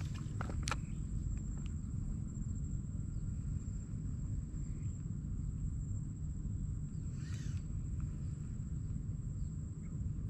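Insects droning in one steady high tone over a steady low rumble, with two sharp clicks just under a second in and a brief rustle about seven seconds in.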